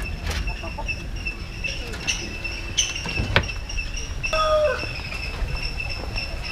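A steady high-pitched insect drone, with scattered sharp knocks and clicks. A short bird call comes about four and a half seconds in.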